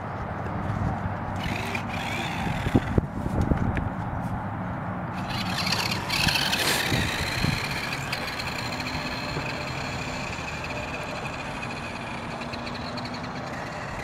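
Velocity Toys Speed Wagon 6X6 RC truck driving over grass and then across asphalt, its electric drive motors whining, over a steady outdoor rush of noise. A few short knocks come about two to four seconds in.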